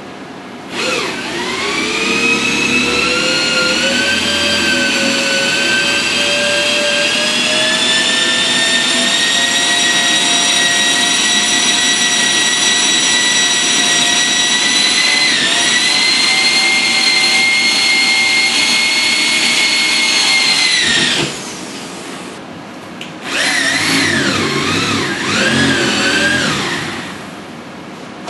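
Corded electric drill boring into a steel mounting plate. The motor whine rises in pitch as it spins up, holds steady for about twenty seconds, then stops. After a short pause it runs again in short stretches with a wavering speed.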